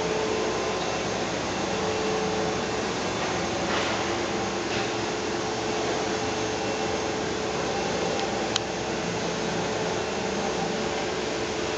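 Hedelius CB 50 vertical machining centre running under power: a steady mechanical whir and hum with a constant tone, and a single sharp click about eight and a half seconds in.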